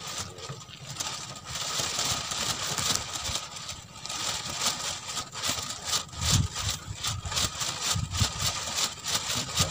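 Fishing reel clicking rapidly while a hooked fish is played on the rod, with two dull knocks from handling the rod about six and eight seconds in.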